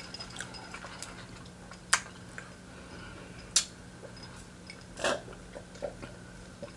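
A person eating fried chicken: quiet chewing with a few small ticks, and three sharp mouth clicks about two, three and a half and five seconds in.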